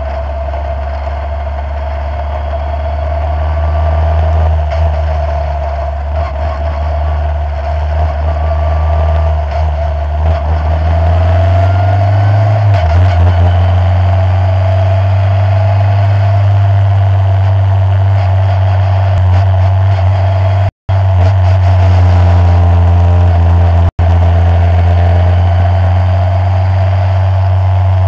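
Skip Barber open-wheel formula race car's engine running steadily at low speed, heard from on board, its pitch stepping up about twelve seconds in. The sound cuts out completely for a moment twice near the end.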